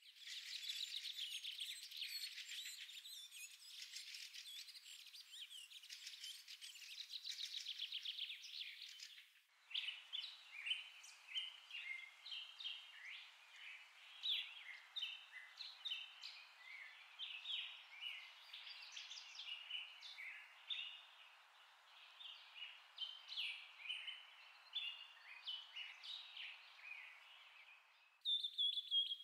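Birds chirping: a dense chorus of high calls that breaks off about a third of the way in, giving way to scattered separate chirps.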